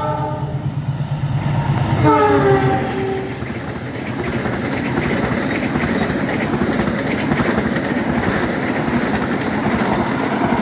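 A passing train sounds its horn about two seconds in, a chord that sags slightly in pitch. It then runs through with a steady rumble and a rapid clatter of wheels over the rails.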